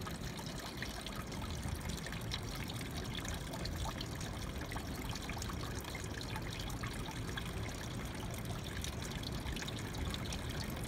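Small tiered garden water fountain, water trickling steadily from its pump spout down into the basins below.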